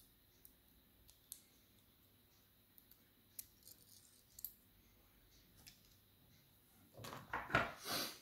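Small metal clicks and ticks of lock pins, springs and tools being handled as a pin-tumbler challenge lock is taken apart. Near the end comes a denser, louder run of scraping and clicking.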